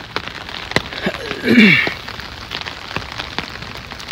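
Steady rain falling, with scattered close drops ticking sharply. About a second and a half in, a short falling voice-like sound cuts through, briefly the loudest thing heard.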